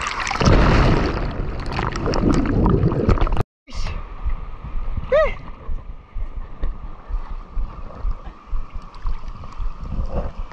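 Sea water sloshing and splashing right at a camera held at the surface of shallow reef surf, loud for the first three and a half seconds until it cuts off abruptly; after that, quieter washing of shallow water around the wader.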